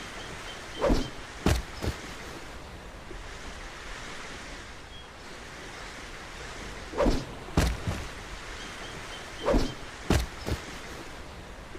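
Throwing knives thrown three times: each throw is a short swish, then about half a second later a sharp thunk as the knife strikes, with a smaller knock after the later strikes. The throws come over a steady background of wind noise.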